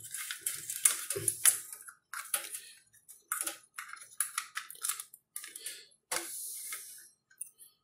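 Computer power-supply cables and plastic connectors being handled and plugged into a power supply tester, with the hard-drive power lead connected to it: irregular clicks, scrapes and rustles of the wiring.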